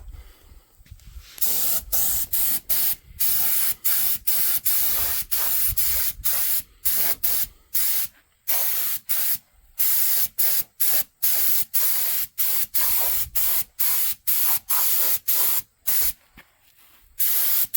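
Aerosol spray can hissing in many short, rapid bursts, starting about a second and a half in.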